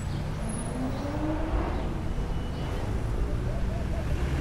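City street traffic: a steady low rumble of cars, with one vehicle's engine rising in pitch as it pulls away during the first second or so.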